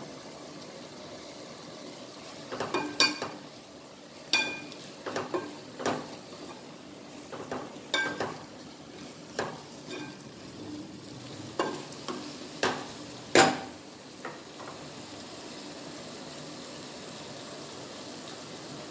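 Wooden spatula stirring chicken pieces in a metal pot, with irregular knocks and scrapes against the pot, some leaving a short ring, over a steady frying sizzle. The knocking stops about three-quarters of the way through, leaving only the sizzle.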